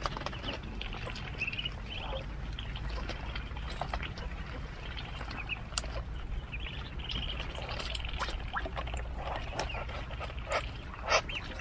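Ducklings peeping in short calls while they peck and dabble at wet water spinach leaves and stems, with a patter of small wet clicks and rustles. A single louder knock near the end.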